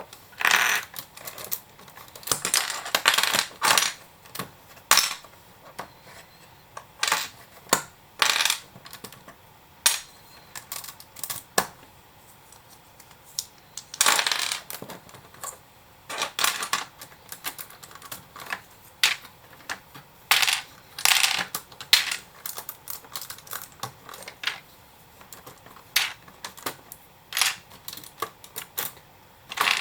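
Lego bricks and small hard parts being pulled apart and set down: irregular sharp clicks and short clattering rattles, some in quick clusters.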